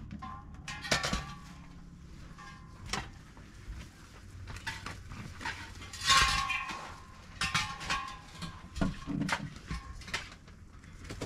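Dishes and kitchen utensils clinking and knocking as they are handled: a string of separate sharp clicks, with a louder clatter about six seconds in.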